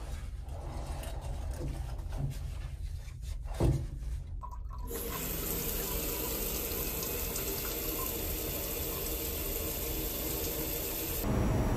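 A handheld shower head spraying water against the wall of a small unit bath, turned on about five seconds in with a steady hiss, over a low steady hum. There is a single knock just before the water starts.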